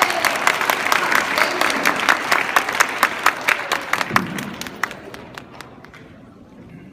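Audience applauding with many hands clapping. The clapping thins out and fades away over the last two seconds.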